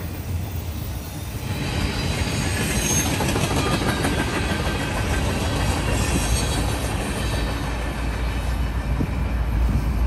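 Freight cars rolling past close by, wheels clattering over the rails with high-pitched wheel squeal and hiss from about a second and a half in. A low diesel locomotive rumble grows near the end as a locomotive approaches.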